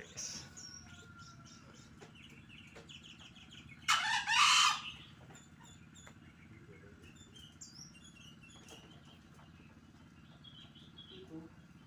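A green junglefowl cockerel gives one short, hoarse, high-pitched crow about four seconds in. Small birds chirp faintly around it.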